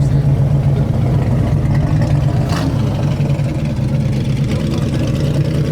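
A vehicle engine idling steadily with a deep, even hum, with one short sharp click or hiss about two and a half seconds in.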